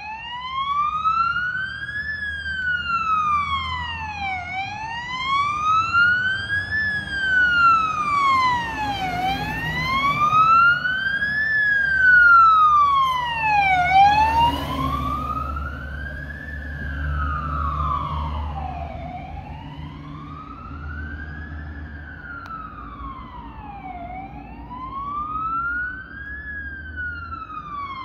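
Scania fire engine's siren on a slow wail, rising and falling about every five seconds, over the rumble of its diesel engine. The rumble grows as the truck drives past about halfway through.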